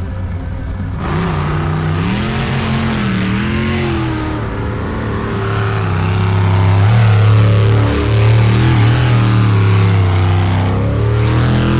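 Sprint boat's V8 engine revving, its pitch rising and falling over the first few seconds, then running harder and louder from about six seconds in.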